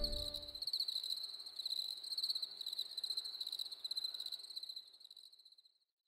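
Crickets chirping in a high, rapidly pulsing trill that fades out about five seconds in, while the last of a music track dies away in the first half-second.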